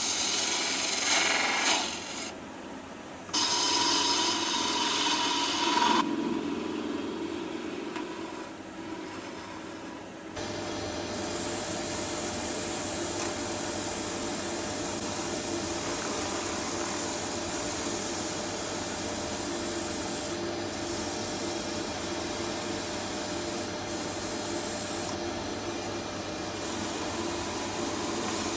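Wood lathe running while tools rub and scrape against the spinning scrap-wood blank, in a few short cut-together stretches, then a longer steady run with an even motor hum.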